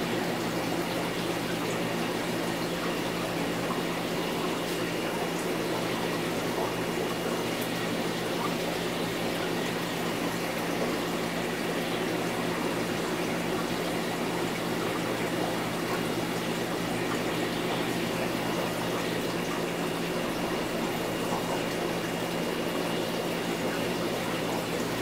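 Aquarium water moving steadily over a low, even hum: a tank filter running.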